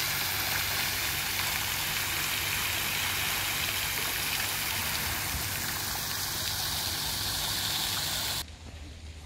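Pond fountain jet spraying high and its water splashing down steadily onto the pool surface. It cuts off abruptly near the end.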